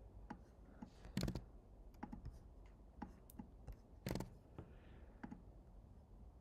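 Faint, scattered keystrokes and clicks on a computer keyboard, with two louder clacks about a second in and about four seconds in.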